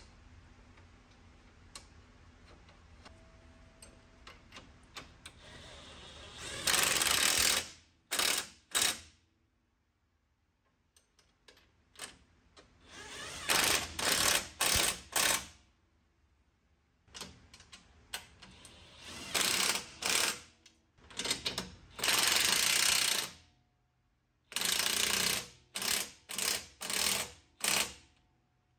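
Cordless impact wrench hammering in repeated bursts of up to a second or two, with short pauses between, as it runs down and tightens suspension pivot bolts on a UTV chassis.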